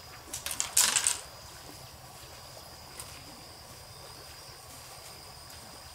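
Forest ambience with a steady high insect buzz over a faint hiss. A few clicks and then a short, loud burst of noise come about a second in.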